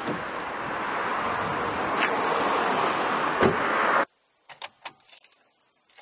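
Steady cabin noise of a car on the move, a rushing road-and-wind noise with a couple of faint knocks. About four seconds in it cuts off abruptly to a quiet stretch of small clicks and ticks.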